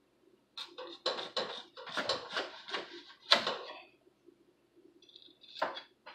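Kitchen clatter of dishes and utensils being handled on a counter: a quick run of knocks and clinks lasting a few seconds, then a couple more near the end.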